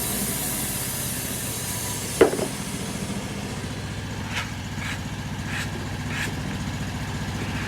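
The homemade bandsaw mill's engine idling steadily after a cut, with one sharp knock about two seconds in and a few faint ticks later on.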